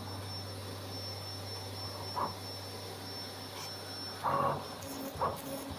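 CNC flatbed cardboard cutting machine running over a corrugated sheet: a steady hum with a thin high whine, broken by short louder bursts about two seconds in and again near four and a half seconds as the cutting head works.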